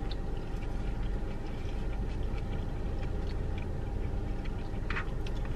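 Quiet eating sounds: light clicks of plastic forks in a takeout bowl and chewing, over a steady low rumble inside a car's cabin. One slightly louder click comes near the end.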